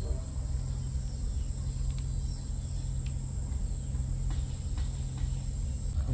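Insects trilling steadily at a high pitch over a constant low hum, with a few faint clicks.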